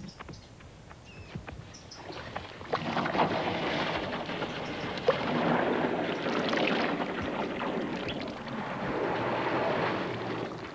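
African elephants drinking at a crowded waterhole: water sloshing and splashing from their trunks, starting about three seconds in.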